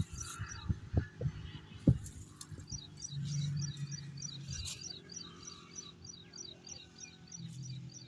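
A bird calls in a rapid, even series of short high chirps, about four a second, through most of the stretch. Several dull low thumps come in the first two seconds, under a faint low hum.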